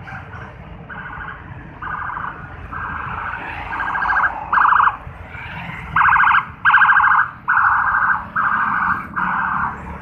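Cicadas singing in a rhythmic series of buzzing pulses, each about half a second long and coming a little faster than one a second, growing louder about halfway through. Street traffic runs underneath as a low rumble.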